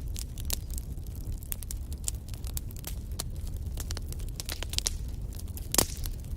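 Burning logs in a fireplace crackling, a scatter of sharp irregular pops over a steady low rush of the fire, with one louder pop near the end.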